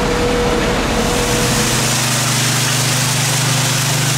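Diesel engines of a truck-mounted concrete pump and a concrete mixer truck running steadily during a concrete pour. About a second and a half in, the sound changes to a smoother, even engine drone.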